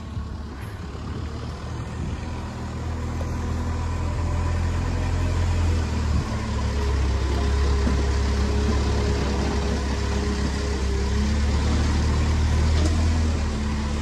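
Heavy diesel machinery engine running: a deep, steady drone that grows louder over the first several seconds and then holds, with a faint higher whine for a few seconds in the middle.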